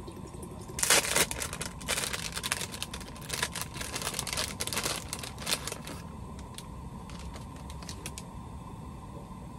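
Crinkling and clicking of plastic food packaging being handled, a quick irregular clatter that starts about a second in, is busiest for the next five seconds, then thins out to a few scattered ticks.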